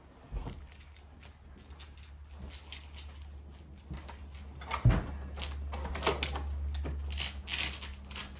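A sleeper sofa being tipped up on end by hand: scattered knocks and rustles, a loud thump about five seconds in, then scraping and clicking from the fabric and the metal fold-out frame, over a low steady hum.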